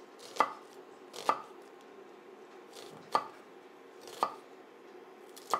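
A chef's knife cutting through an onion and knocking on a wooden cutting board: about five sharp, separate chops, roughly a second apart and unevenly spaced.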